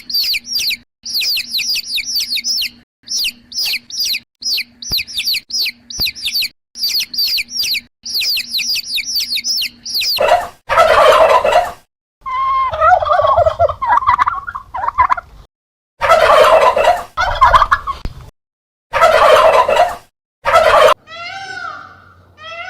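Rapid high chirping of small birds for the first half, then a domestic turkey gobbling loudly several times. A few short, evenly spaced calls begin near the end.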